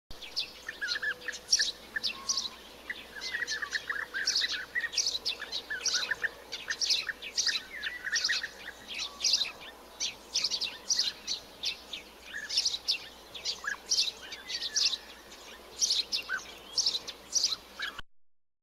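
Birds singing and calling: a steady run of short, sharp high chirps, with lower warbling notes in between, stopping abruptly near the end.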